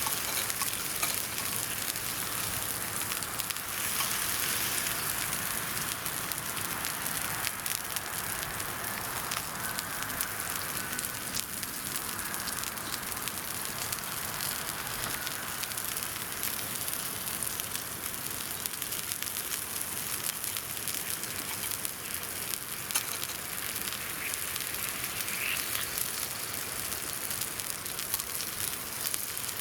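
Wood campfire crackling with frequent small pops over a steady sizzling hiss, as of meat searing over the fire.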